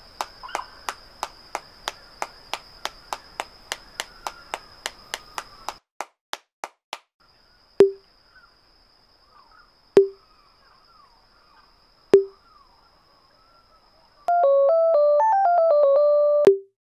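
Minimal electronic cartoon sound design: a fast even ticking of about four clicks a second over a steady high whine, then single sharp pops with a short hollow tone about every two seconds as a ball is kicked, under a faint high tone and faint chirps. A short stepped synthesizer melody comes in near the end.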